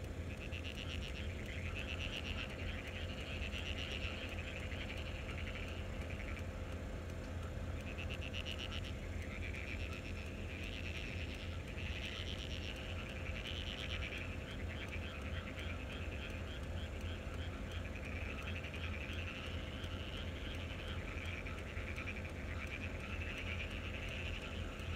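A chorus of frogs calling in repeated bouts of rapid pulsed croaks, over a steady low hum.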